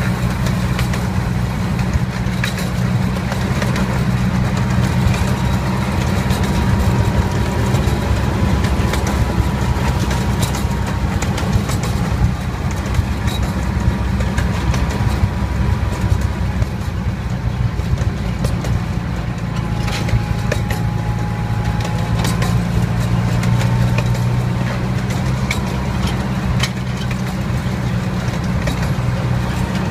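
Miniature ride train under way, its engine running with a steady low hum and scattered light clicks.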